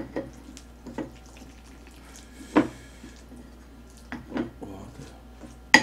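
Large wooden spoon scooping and stirring saucy chicken stew in a ceramic bowl: wet scraping with a few short knocks against the bowl, a louder one about two and a half seconds in and a sharp click near the end.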